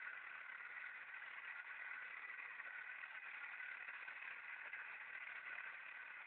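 Small electric motor of a homemade toy tractor pulling a trolley, running with a steady, faint whine.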